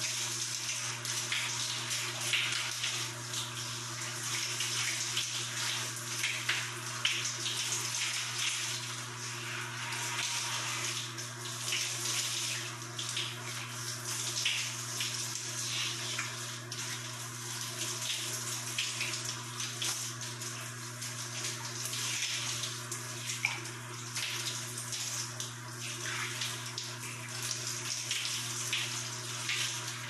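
Shower water running from a showerhead and splashing: a steady, flickering rush, with a constant low hum underneath.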